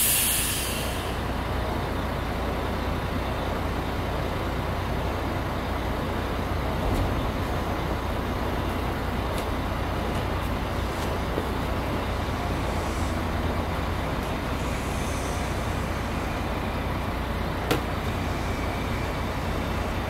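Steady rumble of vehicles and road traffic, with a low engine hum. A loud burst of hissing air dies away about a second in, and a single sharp click comes near the end.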